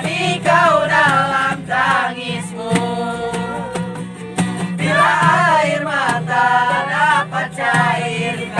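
A voice singing long, wavering notes of an Indonesian ballad over backing music.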